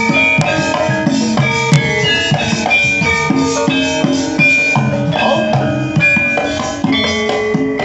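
Javanese gamelan playing in pelog tuning: bronze metallophones and gongs ringing out steady notes over regular kendang drum strokes.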